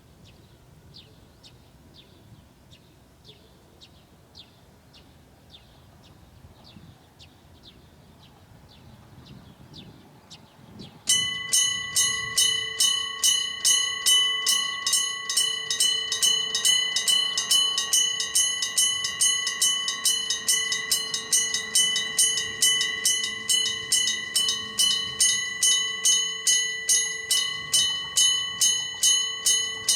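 Level-crossing electric warning bell starting suddenly about eleven seconds in and ringing on in steady metallic strokes, about two a second, signalling an approaching train. Before it starts, faint small chirps repeat about twice a second.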